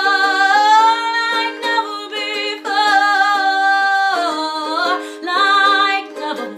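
A singer holds long, wavering sung notes without words over a plucked string accompaniment. The voice slides up about a second in and sweeps down about four seconds in.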